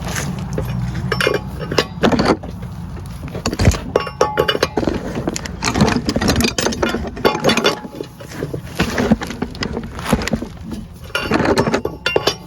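Metal hand tools and parts clinking and clanking in irregular sharp knocks and rattles, with a low rumble under the first two seconds.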